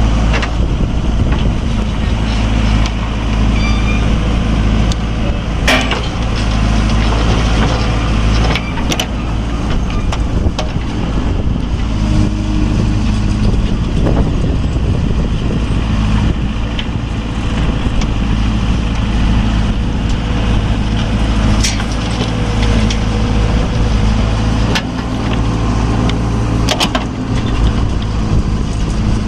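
Heavy diesel engine running steadily under load, with a few sharp metallic knocks now and then.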